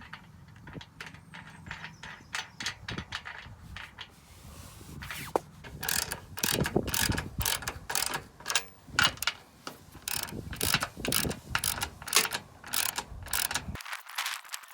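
Ratchet spanner clicking as it tightens a lock nut and washer onto a bolt of an aluminium goal frame bracket. The clicks are faint and quicker at first, then louder at about two a second from about a third of the way in.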